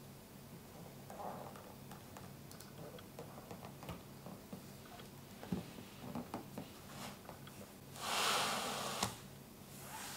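Gloved hands handling a plastic figure and its base: faint scattered clicks and taps of plastic on plastic, then a louder rustle lasting about a second near the end.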